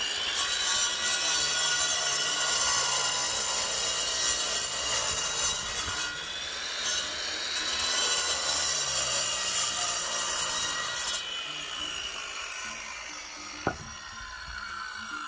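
Handheld angle grinder with a cutting disc sawing through a hollow concrete block, a loud grinding whine. About eleven seconds in the cut ends and the grinder's whine falls away as the disc spins down, with a single sharp knock near the end.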